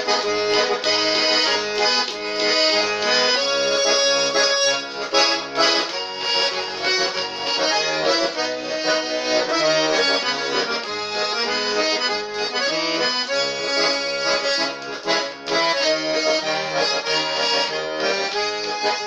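Garmon (Russian button accordion) playing an instrumental break of the song, a melody over a steady oom-pah bass.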